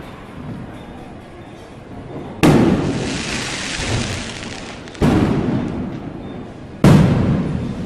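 Three loud firecracker bangs, the first about two and a half seconds in, each followed by a rolling echo that fades over a second or two.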